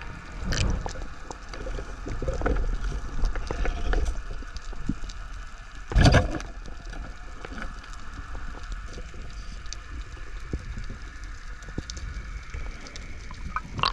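Underwater sound through a diver's camera: a steady low rush of water with scattered clicks and crackles. About six seconds in comes one sharp, loud knock as the polespear is shot into a fish on the sandy bottom.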